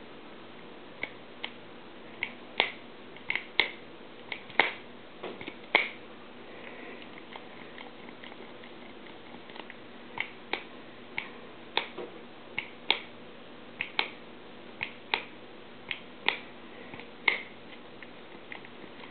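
Shimano RSX STI brake-shift lever clicking as its shift levers are worked by hand, indexing through the gears. There are sharp single clicks and quick double clicks at irregular intervals.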